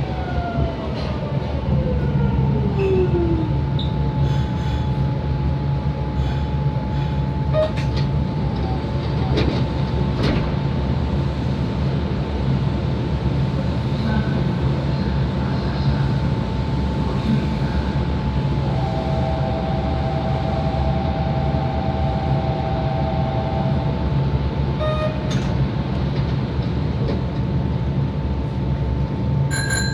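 Kobe Municipal Subway 3000 series car with a Hitachi GTO inverter, braking. The inverter's whine falls in pitch over the first few seconds and fades, leaving the car's steady running rumble and a constant high hum. The recordist finds this car's acceleration and braking sound unusual compared with the rest of the fleet.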